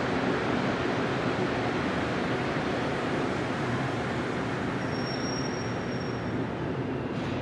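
Montréal Métro MR-73 rubber-tyred train pulling into a station: a steady rumble of running and tyre noise that eases off slightly as the train slows, with a brief faint high whine about five seconds in.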